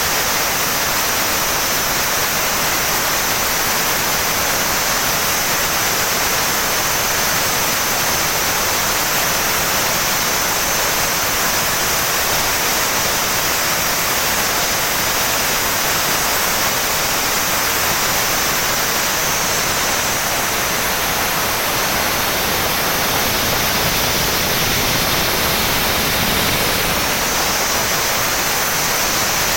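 Elliott Ebara 3 MW steam turbine plant running: a loud, steady hiss of steam and machinery with no changes.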